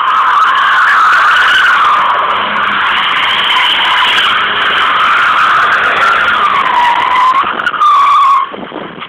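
Tyres of a Mercedes-Benz car squealing in one long, loud screech as the car slides through a turn. The pitch wavers up and down, and the squeal cuts off suddenly near the end.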